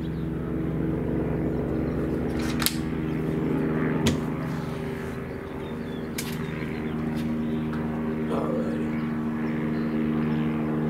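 A steady low machine hum made of several pitched tones, with a few light clicks and knocks, about three seconds in, four seconds in and six seconds in, as the air rifle is settled on its bipod and aimed.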